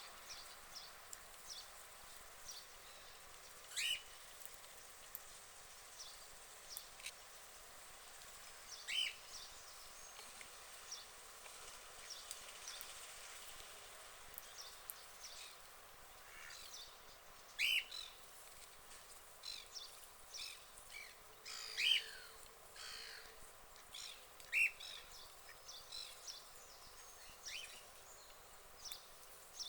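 Short, high bird chirps scattered irregularly over a steady faint hiss, a few of them louder than the rest.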